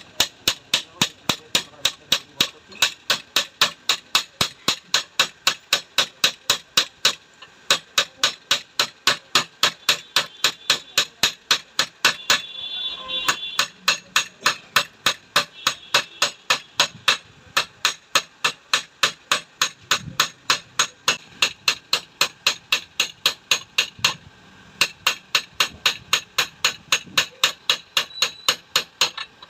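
Hammer striking a metal motorcycle mono-shock body in a steady rhythm of about three to four blows a second, pausing briefly twice, as the mouth of the shock body is widened.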